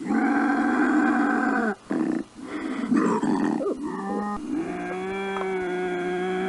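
An animal calling: long, pitched calls, broken by short gaps near the start and about two seconds in.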